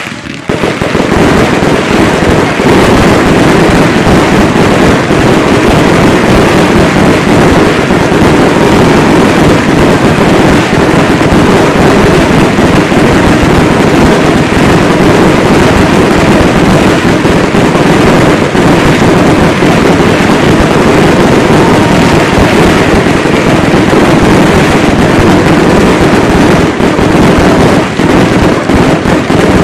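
Fireworks going off at close range as a dense, unbroken barrage, loud from about a second in.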